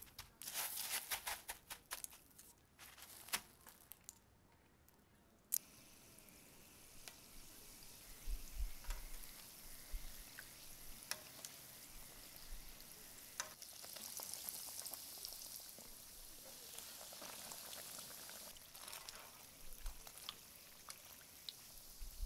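Breaded corn dogs deep-frying in hot oil: a steady sizzle with scattered crackles and pops, starting about five seconds in. Before it, a few seconds of dry crunching and crinkling as cornflake crumbs are pressed by hand onto a batter-coated corn dog.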